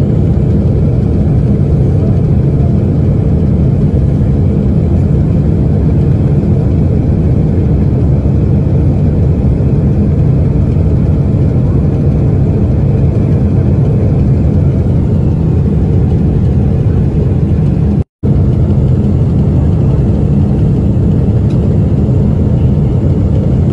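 Loud, steady low roar and rumble inside the cabin of a Boeing 777-200 beside its failed right engine, whose front cowling has torn away and which is on fire after an uncontained failure. The noise breaks off for an instant about 18 seconds in.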